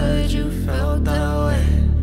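Background music: a melodic lead over a steady bass line.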